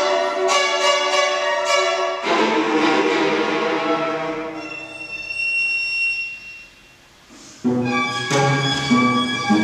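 Viola and cello playing contemporary chamber music: short pitched notes give way to a dense, rough, noisy texture that thins to a single high tone and fades almost to silence about seven seconds in. Both strings then re-enter abruptly, with low cello notes.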